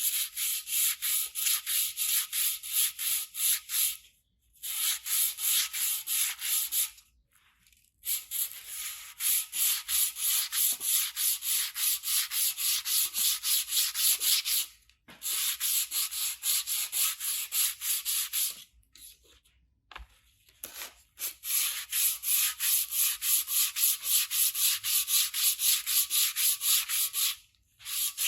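Sandpaper rubbed back and forth over the aluminium exhaust of a 1998 Honda CBR900RR, a steady scratchy rhythm of about three strokes a second. It comes in runs of several seconds with short pauses between them.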